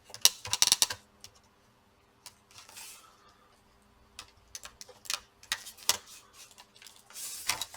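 Sharp plastic clicks and taps from a laptop's plastic case being worked open with a pry tool, in two clusters with a quieter stretch between and a short scrape near the end; a clip holding the case is stuck.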